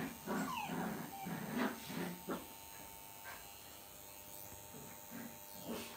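Lhasa Apso dogs whimpering in a few short whines that fall in pitch during the first two and a half seconds, then mostly quiet apart from one faint whine near the end, over a faint steady hum.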